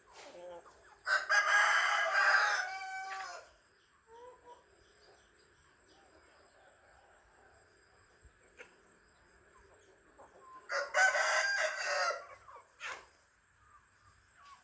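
A rooster crowing twice, each crow lasting about two seconds: one about a second in and another near the end.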